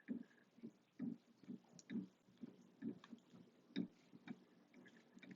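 Faint, uneven knocking and clicking, about two a second, from a Moen Posi-Temp 1222 shower cartridge and its plastic loosening tool being rocked back and forth in the valve body: the cartridge is stuck and only slowly working loose.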